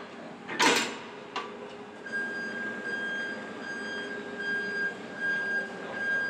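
A sharp metal clank about a second in as a steel hitch pin drops through a tow coupling, followed from about two seconds in by a steady high-pitched tone with brief dips, over a low hangar hum.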